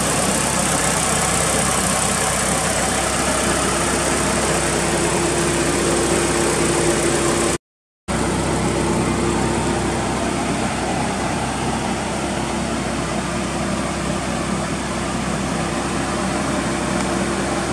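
Mitsubishi Lancer Evolution VIII's turbocharged 4G63 inline-four idling steadily. The sound drops out for about half a second midway through, then resumes unchanged.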